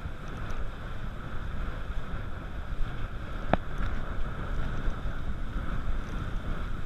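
Wind buffeting the microphone and water rushing and splashing against a towed inflatable tube skimming over a boat's wake, with one sharp click about three and a half seconds in.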